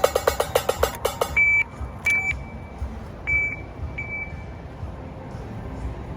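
Casino slot machine sounds: a fast run of pitched electronic ticks, about eight a second, stops about a second in. Then come four short, high beeps at one pitch, over a steady casino floor hum.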